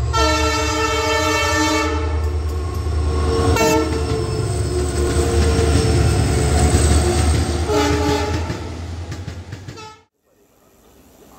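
Indian Railways locomotive horn sounding a long blast, a short toot about three and a half seconds in, and another blast near the eight-second mark, over the deep rumble of a passing train. The sound cuts off suddenly about ten seconds in.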